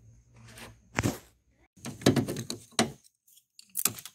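Metal knocks and clunks as the negative cable's terminal clamp is fitted onto the post of a car's auxiliary battery: one sharp knock about a second in, a cluster of several around two seconds, and another near the end.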